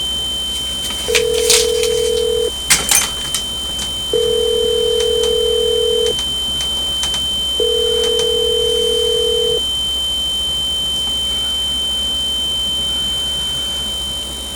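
A telephone ringback tone heard through the line: three rings of about two seconds each, with short gaps between them. A steady high-pitched whine sounds throughout, with a few sharp clicks around the first ring and a low hum underneath.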